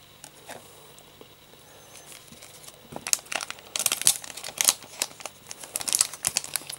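Foil wrapper of a Pokémon card booster pack crinkling and crackling as it is handled and the cards are slid out. The first three seconds hold only a few light clicks; after that comes a dense run of crackles.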